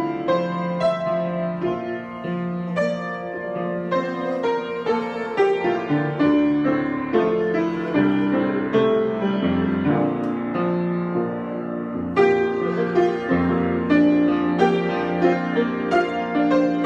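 Solo piano improvisation: chords and melody notes struck over held bass notes, moving at a gentle, unhurried pace.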